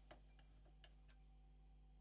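Near silence with a low steady hum, broken by a few faint light clicks from small parts and hand tools being handled during reassembly, the clearest a little under a second in.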